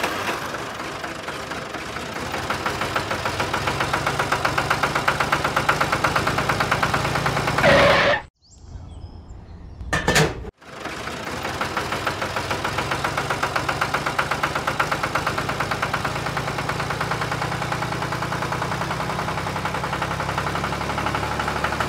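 Tractor engine running with a steady, even chugging. It cuts out about eight seconds in, a short sharp sound comes in the gap, and the engine runs on again about two and a half seconds later.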